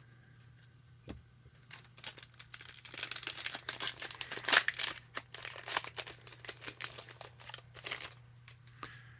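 A foil trading-card pack wrapper being torn open and crinkled by hand: a crackly rustling that starts about two seconds in, is loudest in the middle and dies away near the end.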